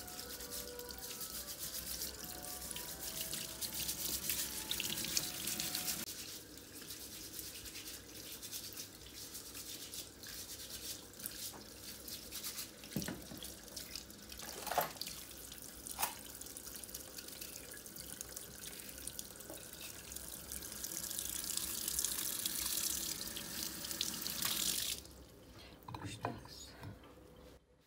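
Kitchen tap running into a stainless-steel sink while Jerusalem artichoke tubers are scrubbed and scraped under the stream, with small scratches and clicks of handling. The water stops abruptly about three seconds before the end.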